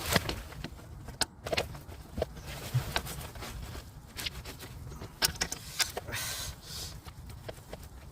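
Irregular sharp clicks and knocks of hand tools and metal parts being handled in an engine bay, with a brief rustle about six seconds in.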